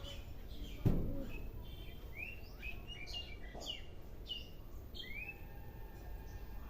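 Small birds chirping in the background, short rising chirps repeated several times. One sharp crack about a second in.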